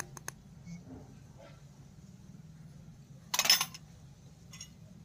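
Miniature stainless-steel tumbler from a toy kitchen set being handled, with a few light clicks at the start, then set down on a concrete floor about three and a half seconds in with a brief scraping clatter, the loudest sound.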